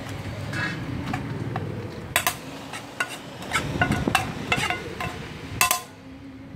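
A metal spoon scraping and clinking against a frying pan as food is scraped out into a stainless steel dog bowl: irregular scrapes and knocks, with a louder knock near the end. A steady low rumble sits underneath.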